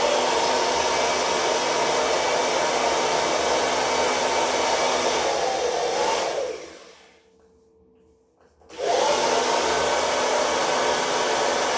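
BaByliss 1800 W hair dryer blowing steadily, switched off about six seconds in with the fan winding down, then switched back on about two seconds later.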